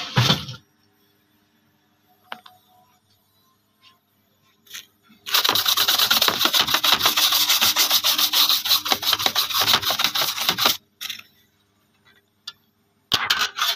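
Wooden block rubbed quickly back and forth over an engraved metal sign plate, a dense scraping that lasts about five seconds in the middle. A few short knocks come at the start and near the end.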